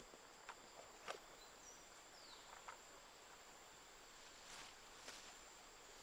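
Near silence: faint forest ambience with a few soft clicks and a couple of short, faint high chirps.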